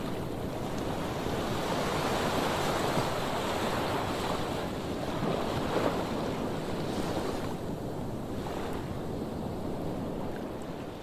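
Heavy surf breaking and washing onto a sandy beach, a continuous rush of waves that grows stronger about two seconds in and eases off near the end.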